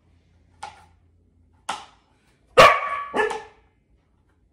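A dog barking: four short barks, the last two loudest and close together.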